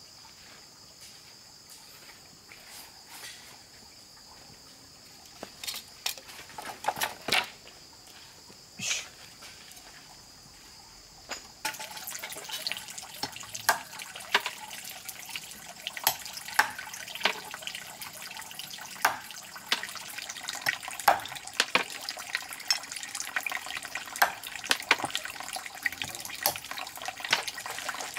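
A steady high insect trill with a few scattered clicks. About twelve seconds in, water starts splashing and trickling with many small irregular clicks, and this goes on.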